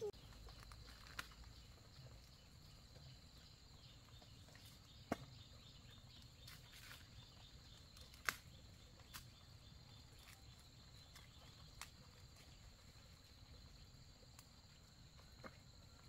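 Faint, steady high-pitched drone of insects, with a handful of sharp, isolated clicks scattered through it.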